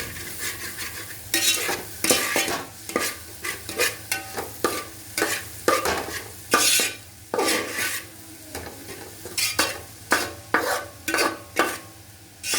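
A spoon stirring and scraping chopped jackfruit pieces around a pan of ghee, in irregular strokes about one or two a second, as the fruit cooks.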